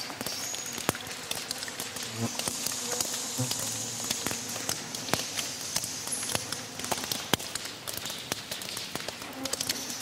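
Cave ambience: water dripping from the cave roof close up in many irregular drips, with insects buzzing and bats calling in the background.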